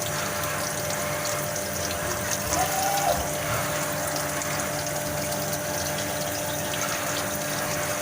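CNC milling machine cutting aluminium with its last end mill, flood coolant gushing steadily over the cut, with a steady machine tone underneath.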